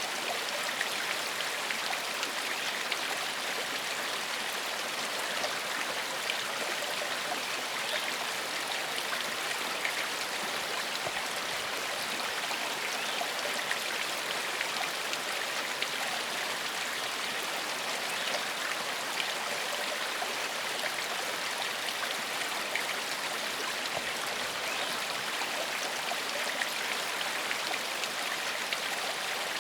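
Small forest stream flowing steadily over stones, a constant bright rush with fine splashes and trickles.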